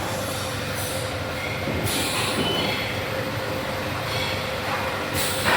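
Steady rumble and hum of workshop machinery with a thin constant tone, broken about two seconds in and again near the end by sharp metallic scraping as machine parts are handled.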